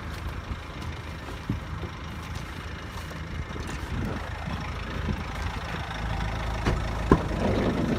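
Motor vehicle engine running with a steady low hum, with a few short knocks, the loudest about seven seconds in.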